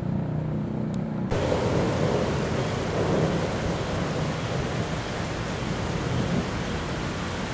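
Heavy rain falling steadily on a concrete railway platform and tracks, a dense hiss that cuts in suddenly about a second in and is a little louder for the next two seconds. Before it, a brief steady engine hum.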